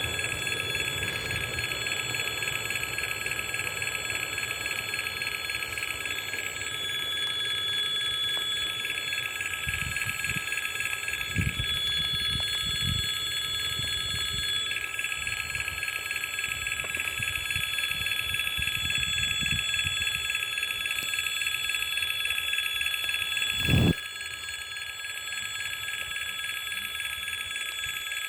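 Level-crossing warning signal ringing steadily, a continuous high alarm tone, with some low rumbling partway through and a sharp knock about 24 seconds in.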